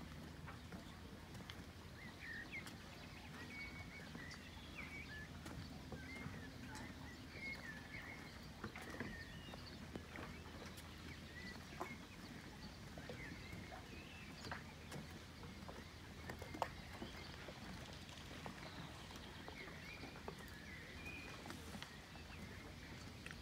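Faint birdsong: many small birds chirping and whistling in short calls, with scattered light ticks and clicks.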